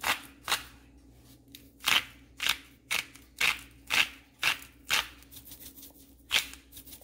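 Salt grinder twisted by hand, giving a series of short rasping grinds about two a second, with a pause in the middle, as it grinds salt.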